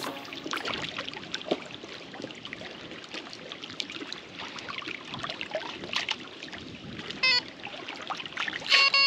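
Water lapping and trickling, with many small clicks and light splashes. Music comes back in near the end.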